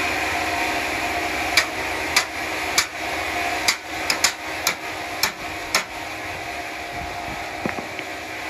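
A hammer striking about nine sharp blows in an irregular run over the steady hum of running sawmill machinery.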